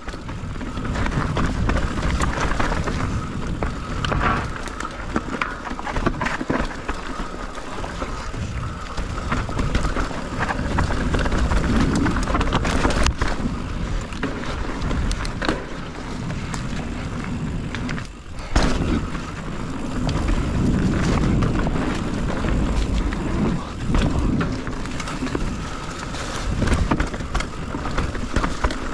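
Mountain bike riding down a dirt trail: a steady rumble and rattle of tyres and bike over the ground, with scattered knocks and one sharp hit a little past halfway.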